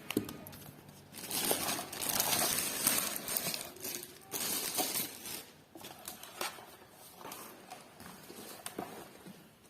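Cardboard and plastic packaging being opened and handled: rustling and scraping with scattered knocks, loudest in the first half and quieter towards the end.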